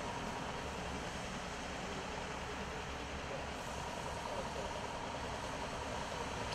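Steady traffic noise on a wet freeway: an even hiss with a low engine rumble and no sudden events.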